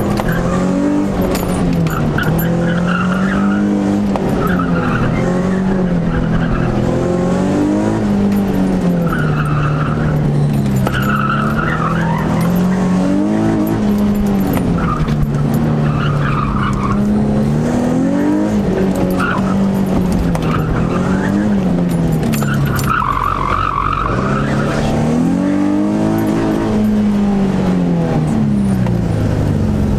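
Nissan 350Z's V6 engine heard from inside the cabin during an autocross run, revving up and falling back over and over as the car is driven hard between the corners, with repeated short bursts of tyre squeal.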